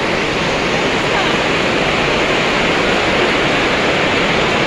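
Steady hubbub of a crowd talking and walking in a busy indoor market, many voices blending into a dense wash of noise.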